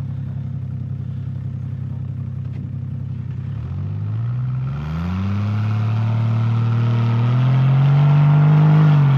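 Off-road 4x4's engine idling, then revving up about four seconds in and held at high revs, its pitch climbing slowly with a short dip near the end.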